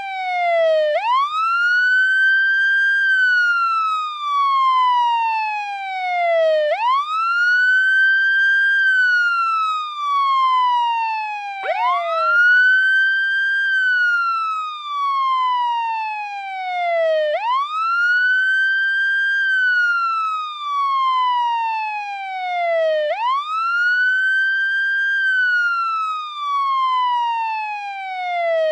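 American police car siren sounding the wail tone: the pitch rises quickly, holds briefly at the top, then falls slowly, a cycle that repeats about every six seconds. About midway through, one fall is cut short by the next rise.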